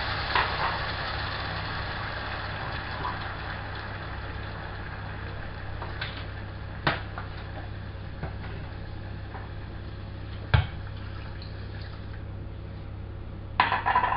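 Water poured onto toasted jasmine rice in a hot oiled pot, hissing and bubbling, fading away over the first few seconds, over a steady low hum. A few sharp clicks and knocks of pot and utensil follow, the loudest about ten and a half seconds in and a quick cluster near the end.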